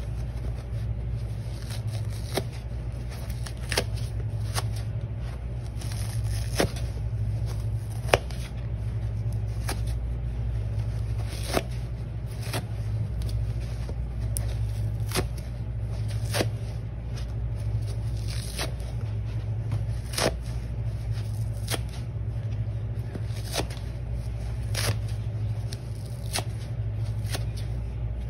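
Dry sponge being torn apart by hand, with a short ripping sound every second or two over a steady low hum.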